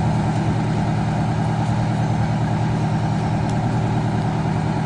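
Fire truck's engine running steadily at idle, a constant low drone.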